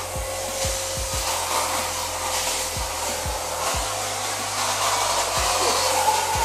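Vacuum cleaner running steadily with a high-pitched motor whine as it sucks dirt out of car seat upholstery, with irregular low bumps from the nozzle and handling.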